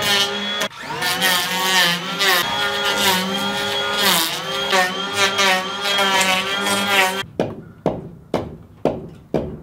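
Cordless drill motor running at high speed, its whine dipping in pitch as it takes load about a second in and again about four seconds in, then stopping. A few sharp knocks follow near the end.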